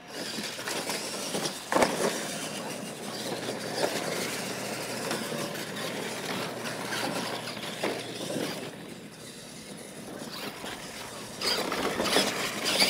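Radio-controlled monster trucks racing on dirt: motors running and tyres churning, with sharp thuds as they land off the jumps, loudest about two seconds in and again near the end.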